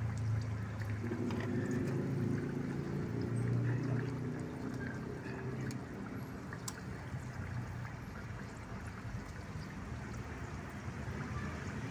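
Chicken pieces bubbling and sizzling in hot oil in a pan over a wood fire.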